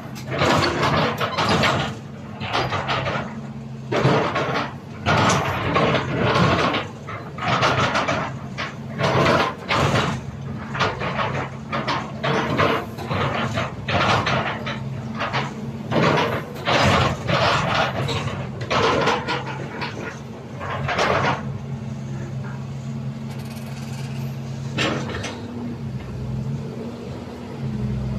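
CAT 320D crawler excavator's six-cylinder diesel engine running steadily, with many short bursts of metallic clanking and squealing from the working machine through the first two-thirds. After that the engine runs mostly alone, its pitch shifting slightly near the end.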